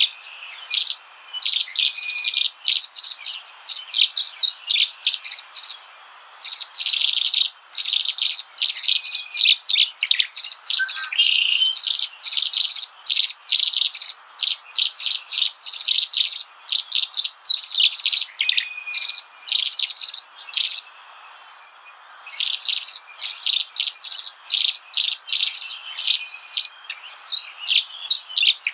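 Birds chirping: quick runs of short, high chirps, several a second, with brief pauses now and then.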